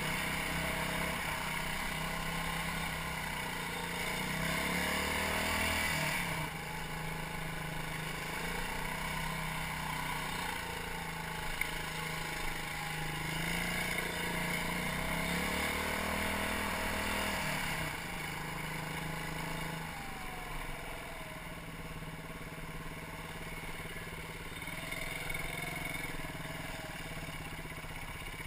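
BaltMotors Motard 200 supermoto's 200 cc engine running on the move, its revs rising and falling. The owner reports that this engine ticks now and then, surges and loses pull since a tank of dubious fuel.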